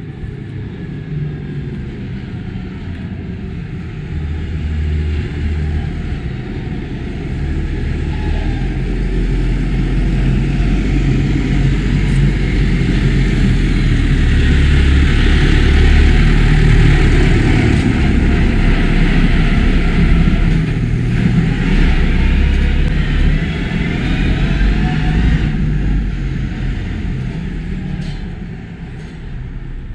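An engine passing by, growing louder over about ten seconds, loudest midway, then fading away.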